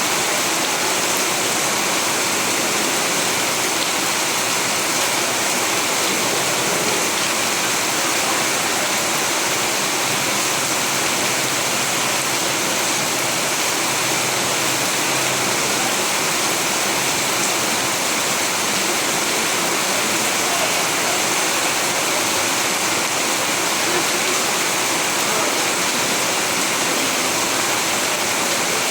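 Steady rain falling, an even hiss with no breaks or changes in strength.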